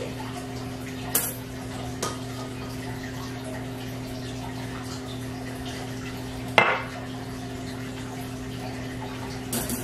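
Loaf pans knocking and clattering as they are handled: a sharp knock about a second in, a faint one at two seconds, the loudest about six and a half seconds in, and another near the end, over a steady low hum.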